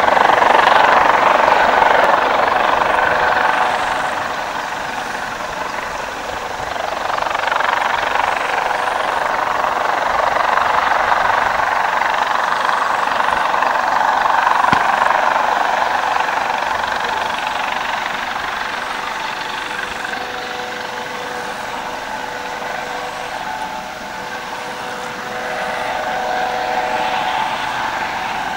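Helicopter flying with continuous turbine and rotor noise, a steady whine running under it, growing louder and fading several times.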